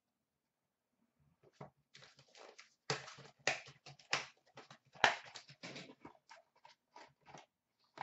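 Cardboard trading-card box being opened by hand and the cards handled and slid out: a run of short rustles and clicks after about a second and a half of quiet.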